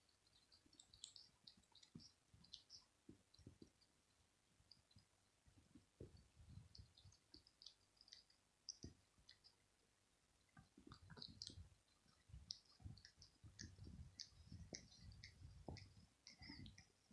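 A domestic cat licking its own fur close to the microphone: faint, irregular wet clicks of its tongue and mouth, coming thicker in the second half.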